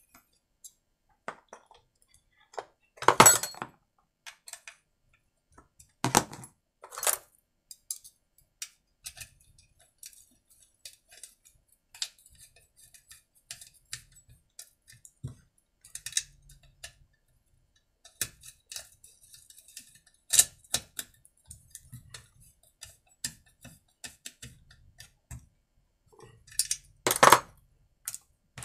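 Metal hand tools working on a chainsaw: scattered light clicks and clinks of a T-handle hex driver and hex key on screws and the saw's housing, with several louder sharp knocks.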